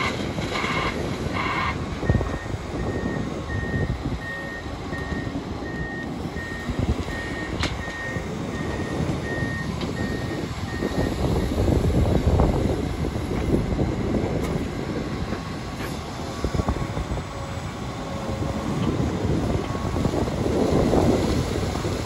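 Diesel excavators and a dumper truck working, a steady engine rumble with louder swells. A reversing alarm beeps at one pitch about once every 0.7 seconds through the first half, then stops.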